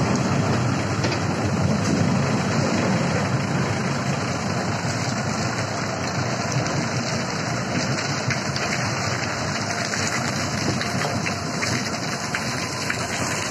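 Heavy machinery of a stone-crushing plant running: a steady low noise with a constant hiss over it.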